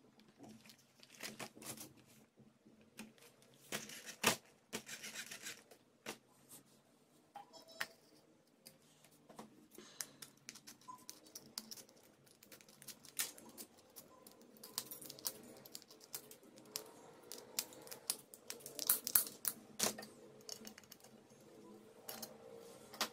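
Hands handling and fitting small plastic and metal parts of a homemade toy car (toy motors, wheels, wire axles, aluminium can pieces): scattered clicks, taps and short scrapes. Near the end come the snips of scissors cutting thin can metal.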